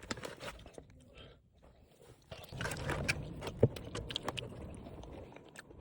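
Close-miked eating: food being bitten and chewed, with wet clicks and crunches, busiest around the middle.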